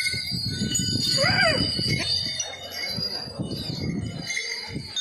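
Bells on a decorated temple elephant's neck ornaments jingling and ringing as it walks.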